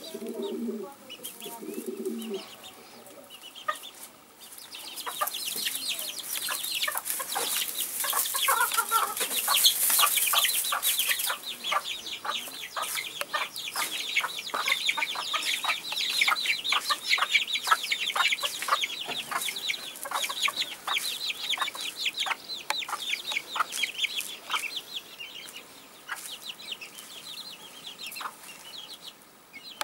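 Bantam chickens: a hen clucking low at the start, then a long run of quick, high chirps from her chicks, with an occasional cluck among them.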